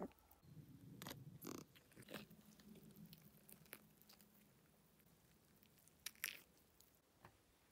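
Faint gnawing and chewing of a puppy working on a raw goose foot, with small crunches and clicks. Near the end, a short scrape of a plucked goose being handled on a wooden cutting board.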